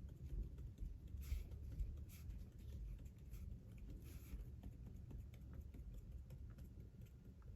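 A gold marker's tip dabbing dots onto sketchbook paper: soft, irregular taps about once a second.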